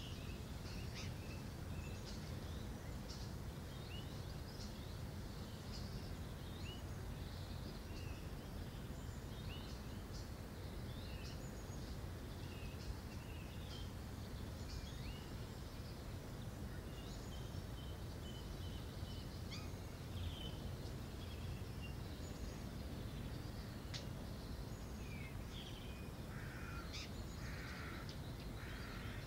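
Outdoor ambience: a steady low background noise with small birds chirping on and off throughout, and a few harsher, lower calls near the end.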